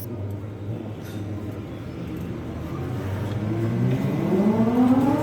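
Car engine running steadily, then rising in pitch from about three seconds in as the car accelerates.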